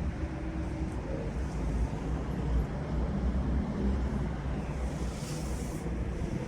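A low, steady rumble with faint humming tones above it, the kind of 'strange sky sound' that is heard as an unexplained rumbling and humming; a brief hiss swells about five seconds in.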